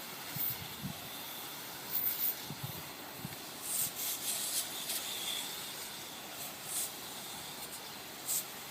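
Water spraying from a hose, rinsing soap off window screens: a steady hiss with several brief louder spurts.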